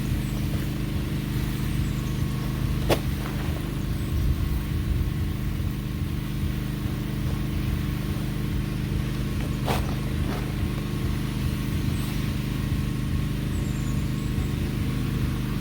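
A steady low machine hum, like a motor or engine running, with a sharp click about three seconds in and another about ten seconds in.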